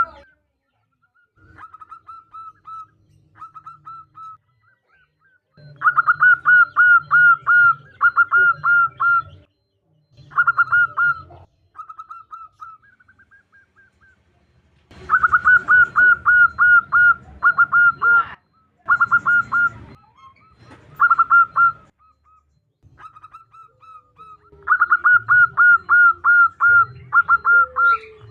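Zebra dove (perkutut) calling: bouts of quick, repeated cooing notes in rapid series, several bouts with short quiet gaps between. Billed as a female's call to attract a male.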